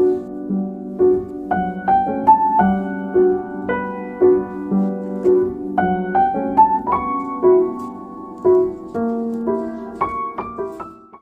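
Background music: a gentle solo piano tune with a repeating low accompaniment, ending abruptly just before a brass-led track starts.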